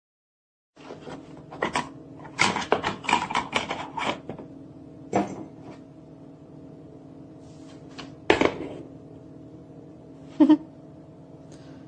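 Parts of a drip coffee maker being handled: a run of clicks and clatters, then single knocks, including a double knock near the end, over a steady low hum.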